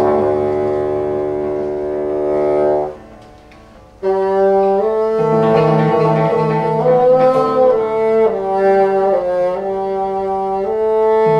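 Bassoon playing a long held note that stops about three seconds in, then, after a pause of about a second, a run of held notes that step up and down in pitch. The line is part of a microtonal improvisation.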